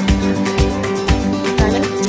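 Background music: acoustic guitar playing over a steady beat.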